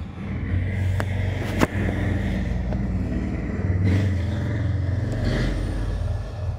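A motor vehicle engine running steadily with a low hum, with two sharp clicks about a second and a second and a half in.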